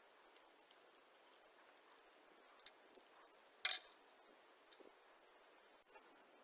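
Faint handling sounds of small parts being worked by hand: scattered light clicks and taps, with one louder sharp click-scrape a little past the middle.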